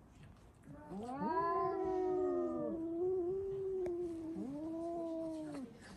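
Domestic cats yowling: long, drawn-out calls begin about a second in, two overlapping at first, with one held steady for a few seconds and a shorter yowl following near the end. This caterwauling is usually the sign that the cats have spotted another cat outside the window.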